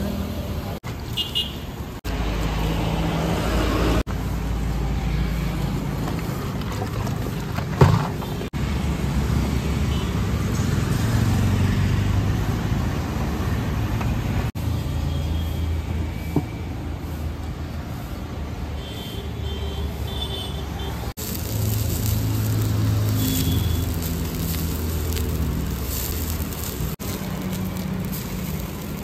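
Road traffic from passing vehicles, with a sharp knock about eight seconds in.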